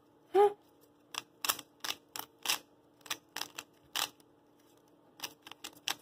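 Plastic stickerless 3x3 Rubik's cube being turned fast by hand: a run of sharp, irregular clicks as the layers snap round. About half a second in there is one short rising vocal sound, louder than the clicks.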